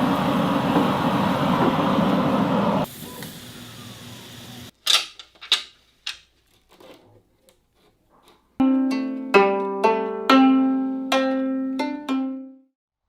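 A steady rushing noise cuts off about three seconds in, followed by a few sharp knocks; then a gayageum is plucked, about six notes, each ringing and fading, the last dying away just before the end.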